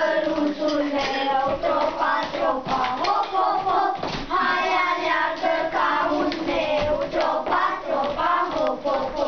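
A group of children singing or chanting together in unison, with a running rhythm of sharp claps and knocks over the voices.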